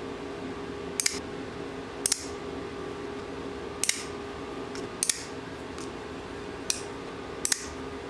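VC Edge Interface custom folding knife being flipped open and snapped shut over and over. There are six sharp metallic clicks, several of them doubled, as the blade locks open or drops closed. A steady low hum runs underneath.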